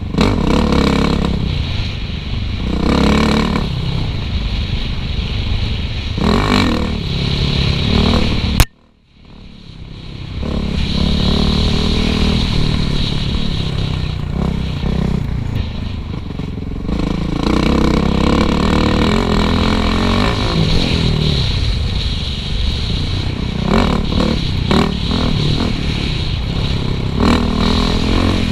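Suzuki RM-Z450 four-stroke single-cylinder dirt bike engine revving up and down between gear changes while trail riding. Just under nine seconds in there is a sharp click and the sound drops out for about a second before coming back.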